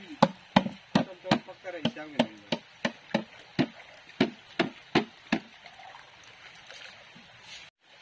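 A quick run of sharp, hard knocks, about three a second, which stops about five and a half seconds in. Stream water runs faintly beneath.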